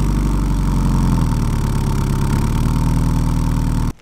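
Subaru WRX STI's turbocharged flat-four engine idling steadily through a Tomei exhaust with its silencer insert fitted; the sound cuts off suddenly near the end.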